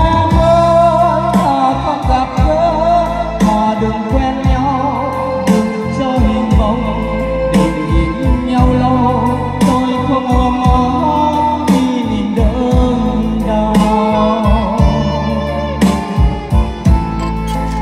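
A song with a sung melody over a band backing of drum hits and deep bass, played loud through a stage PA system of line-array speakers and subwoofers.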